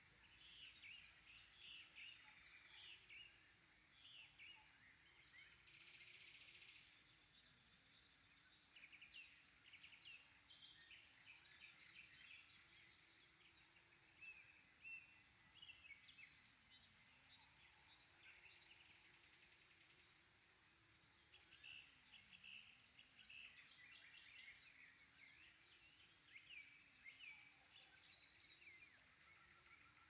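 Faint chorus of wild songbirds singing from woodland, many overlapping chirps and trills.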